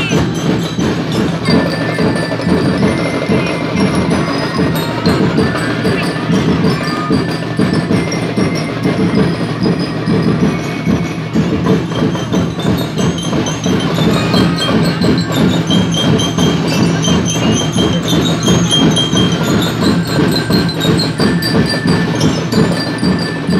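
Drum and lyre corps playing: a steady beat of marching drums under a melody on bell lyres.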